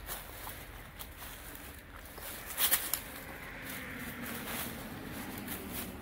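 Footsteps and scuffs of someone walking over debris, with scattered clicks. One louder crunch or knock comes near the middle. A faint low drone joins in the second half.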